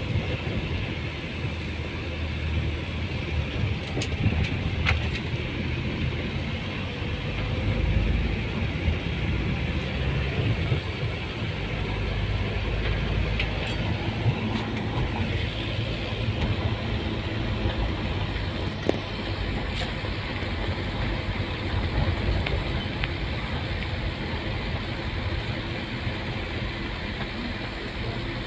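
Car driving, heard from inside the cabin: a steady low engine and road rumble with tyre noise, and a few light clicks and rattles scattered through it.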